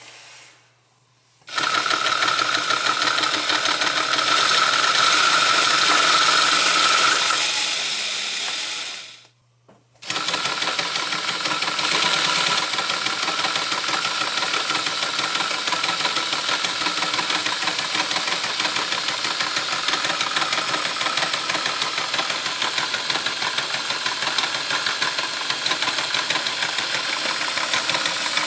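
A LEGO V-twin engine model driven by an electric motor, with its plastic pistons and gears clattering rapidly and a steady whine. It runs for about eight seconds, dies away, then starts again about ten seconds in and runs steadily.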